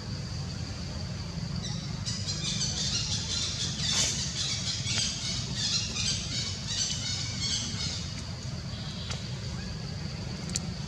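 Macaque giving a run of high-pitched squeals and squawks for about six seconds, loudest about four seconds in, over a steady low rumble.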